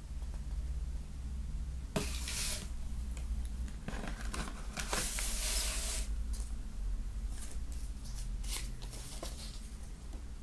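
Paper and thin cardboard rustling and scraping as a CD booklet is handled and pulled from a cardboard digipak, then unfolded: a short scrape about two seconds in, a longer one around five seconds, then several brief rustles near the end.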